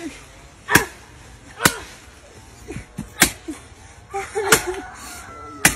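Five sharp chopping strikes of a blade into a tree trunk, irregularly spaced about a second apart.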